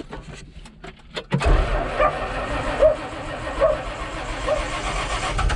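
Engine cranking with quick irregular clicks, then catching suddenly about a second and a half in and running steadily. It fires after being dosed with starting fluid.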